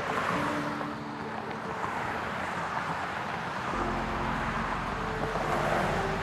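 Steady rushing outdoor ambient noise, like traffic passing on a road, with faint low held tones underneath.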